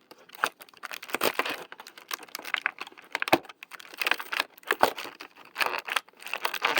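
Small plastic fidget toy and its packaging handled, giving bursts of rapid clicking and crinkling.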